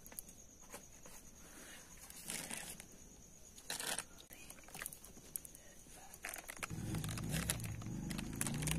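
A table knife scrapes and taps against bread and a plate while a cooked mushroom filling is spread, with a few sharp clicks and rustles. A cricket trills steadily and high behind it. A louder low drone comes in about two-thirds of the way through.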